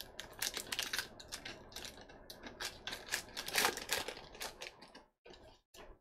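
Plastic wrapper of a Topps Allen & Ginter baseball-card pack crinkling as it is torn open and peeled off the cards. The crackling is dense for about five seconds, then comes as a few separate crackles near the end.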